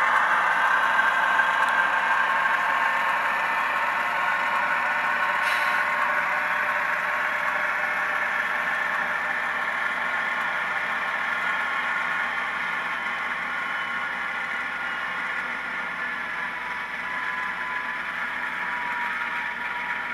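Sound decoder in a model EH44AC diesel locomotive playing its diesel engine sound through a small speaker: a steady, thin engine hum with no deep bass, slowly getting quieter. There is a sharp click about five seconds in, and the engine tone dips slightly in pitch near the end.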